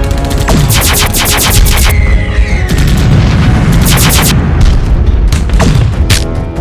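Rapid machine-gun fire sound effects over loud background music: a burst of about a second starting just under a second in, a shorter burst around four seconds in, then scattered single shots.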